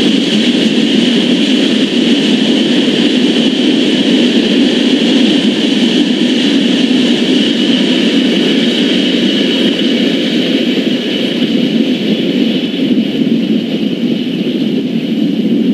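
Freight train of loaded crude oil tank cars rolling past, a steady loud rumble and rail noise of steel wheels on the track.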